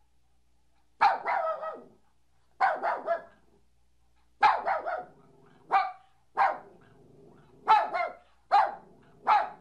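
A dog barking: single barks and quick runs of two to four, with short silent pauses between them.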